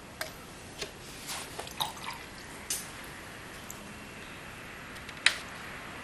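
Watercolour brush being rinsed and worked against a water jar and paint palette: a series of short sharp clicks and taps with small watery sounds. The sharpest click comes about five seconds in.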